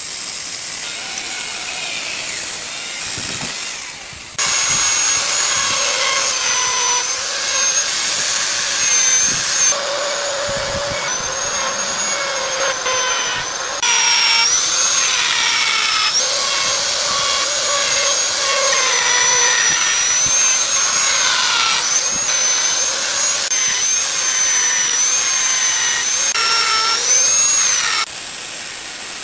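Power tools carving a wood block, in several spliced takes. A chainsaw cuts briefly at the start and again near the end. In between, a handheld die grinder with a carving burr runs at high speed, its high whine dipping and recovering as the bit bites into the wood.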